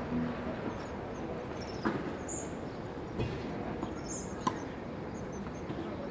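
Padel ball struck by paddles in a rally: three sharp knocks about a second and a half apart over steady background noise, with a few brief high chirps.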